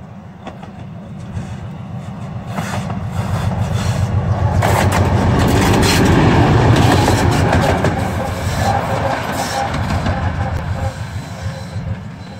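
3TE10M diesel locomotive passing close by, its two-stroke 10D100 diesel throbbing. The sound swells to a peak about six seconds in and fades away, with the wheels clacking over the rail joints as it goes by.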